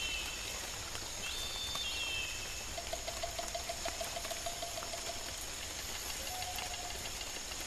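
Mountain forest soundscape: a steady rush of flowing water, with a couple of short whistled bird calls in the first two seconds and a low, rapid trill of about eight pulses a second for about two seconds, returning briefly near the end.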